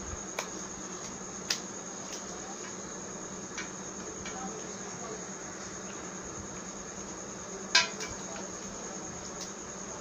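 A few sharp hard-plastic clicks and taps as a laptop power adapter's circuit board is fitted back into its plastic casing, the loudest about three-quarters of the way in. A steady high-pitched whine and a low hum run underneath.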